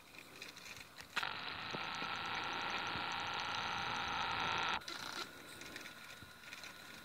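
A video camera's zoom motor whirring steadily for about three and a half seconds, starting and stopping abruptly, as the lens zooms in.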